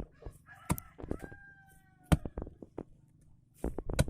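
A rooster crowing, one long call that falls slightly at the end, about a second in, with several sharp clicks and knocks close by.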